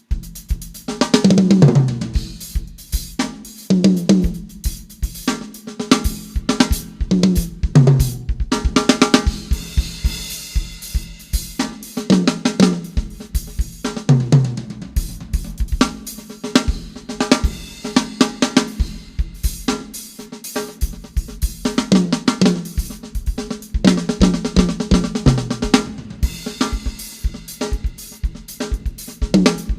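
A drum kit being played with kick, snare, hi-hat and cymbals, for a sound check. It breaks repeatedly into fills of pitched hits that step down in pitch.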